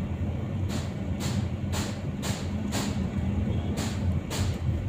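Vehicle engine running steadily, heard from inside the cabin, with a run of sharp, evenly spaced clicks about twice a second.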